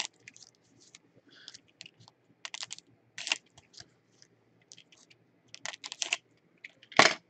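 Foil trading-card pack wrapper crinkling and crackling in short, irregular bursts as it is handled and torn open by hand. The loudest crackle comes about seven seconds in.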